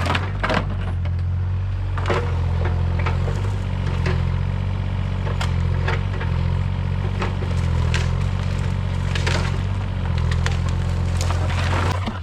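Dry brush and branches cracking and snapping in quick irregular cracks over a steady low drone, which cuts off near the end.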